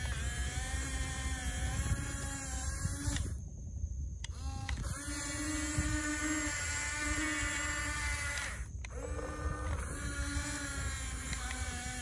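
Huina 1569 RC bulldozer's small electric track motors whining as it drives back and forth in sand, the pitch shifting with speed. The whine stops for about a second and a half a little over three seconds in, and again briefly near nine seconds.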